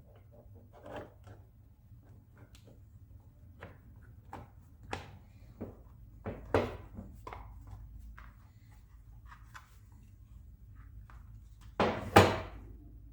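Parts and tools of a hand-held wood router being handled during repair: scattered light clicks and taps, with two loud knocks close together near the end.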